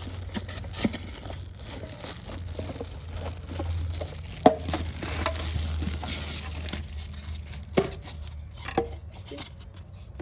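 Rustling and crinkling of packing material with scattered clicks and knocks as a new mini fridge and its parts are handled, the sharpest knocks about four and a half and eight seconds in.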